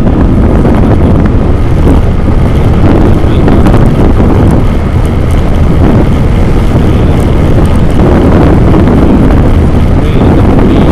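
Steady, loud wind buffeting on an action camera's microphone while travelling along a road, with vehicle and road noise underneath.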